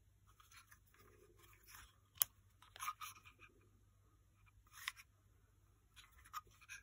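Handling noise from a small blank-firing pistol turned over in the hand: scattered small clicks and light rubbing, with one sharper click about two seconds in.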